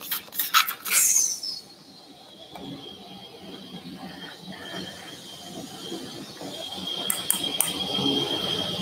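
Steel surgical instruments clicking a few times, then a steady high-pitched whine that grows louder toward the end.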